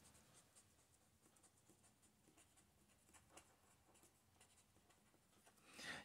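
Faint scratching of a felt-tip marker writing on paper, a run of short strokes.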